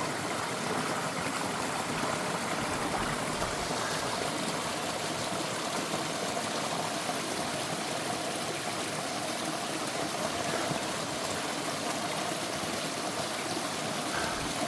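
Mountain stream rushing steadily over rocks, an even unbroken water noise.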